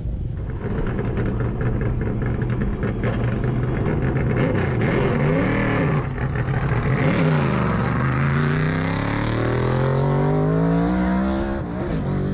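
A car's engine at full throttle on a standing-start mile run: its pitch rises and falls twice, then climbs steadily as the car accelerates away, with a gear shift near the end.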